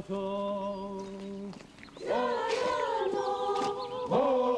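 Slow chanted singing: one voice holds a long steady note for about a second and a half, then after a short break several voices come in together on held, gently wavering notes.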